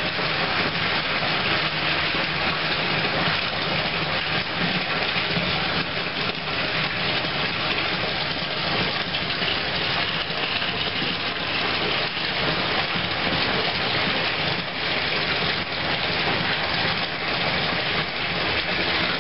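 Water running hard and steadily from the tap into a bathtub.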